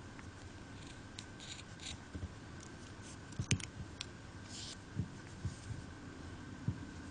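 Small scissors quietly snipping the yarn ends of a crocheted tassel, a few short cuts, then sharper clicks and light knocks as the scissors are handled.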